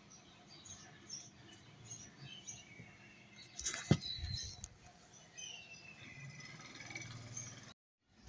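Birds chirping faintly in the background, with short high calls and a few gliding ones. About four seconds in there is a single sharp knock as a silicone spatula goes into the pan to stir the sauce.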